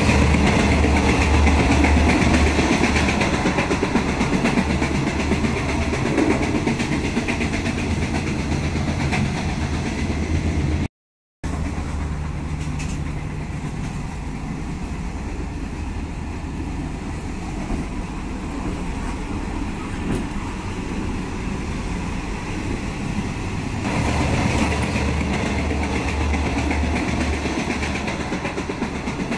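Steady running noise inside an older-type Thai Railway sleeper carriage moving along the track. It cuts out for a moment about eleven seconds in and grows louder near the end.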